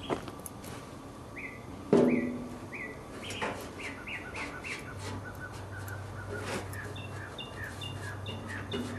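A bird chirping over and over, short rising chirps about two a second, with a second, higher chirp joining in near the end. A single knock about two seconds in is the loudest sound, and a low steady hum comes in about halfway.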